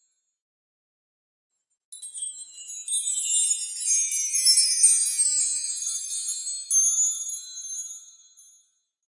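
High tinkling chimes: many overlapping bell-like tones that come in about two seconds in, build, and fade away near the end.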